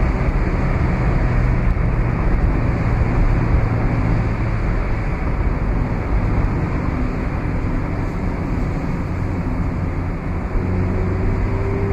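2017 Mazda MX-5's four-cylinder engine running at a steady cruise, its low hum under heavy wind and road noise in the open-top cockpit.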